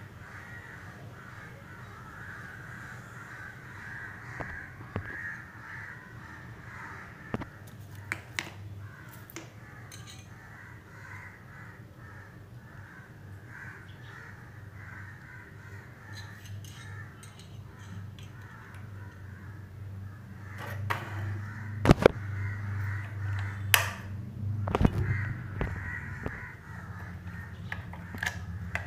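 Crows cawing on and on in the background. Sharp clicks and knocks of handling come now and then, with the loudest pair about three-quarters of the way through.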